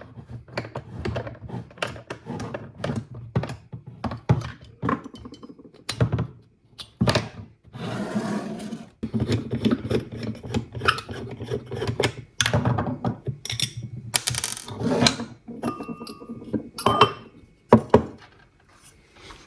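Headlight parts being handled and set down on a work surface: a run of knocks and clicks, with a stretch of rubbing about eight seconds in.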